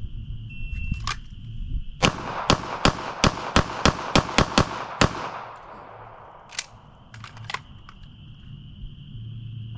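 A shot-timer beep, then a Sig Sauer P320 pistol firing a rapid string of about ten shots over about three seconds, followed by a few fainter shots.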